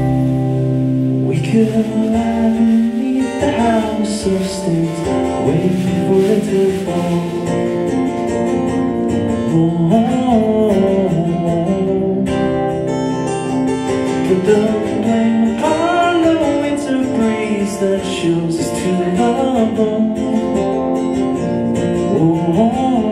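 Live music: acoustic guitar strumming chords with drums and a wordless sung melody.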